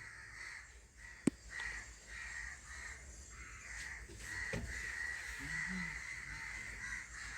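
Faint, repeated high calls of birds in the background, some short and some drawn out, with a single sharp click just over a second in.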